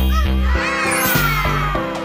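Background music with a steady beat, with a sound effect whose pitch slides down over about a second in the middle.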